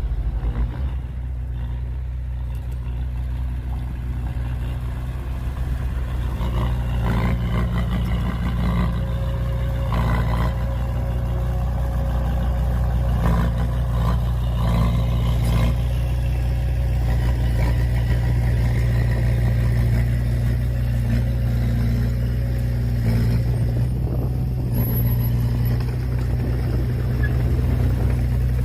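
Heavy diesel engine of earthmoving machinery running steadily under load, with a deep, even drone. A few clanks and rattles come in the middle stretch.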